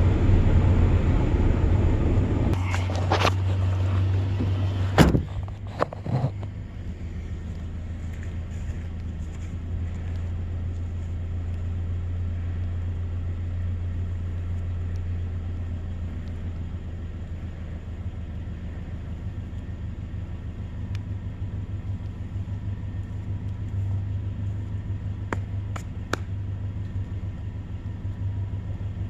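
Vehicle engine and road noise heard from inside the cab while driving, a steady low drone. It is louder for the first five seconds, then settles quieter, as if slowing, with a few sharp knocks between about three and six seconds in.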